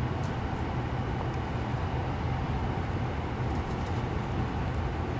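Steady low mechanical hum with a background hiss, like room ventilation machinery, with a few faint high ticks.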